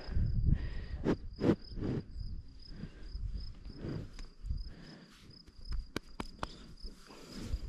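Insects trilling: an even, high-pitched pulsing note runs on steadily, with low rumbles and scattered clicks and knocks beneath it.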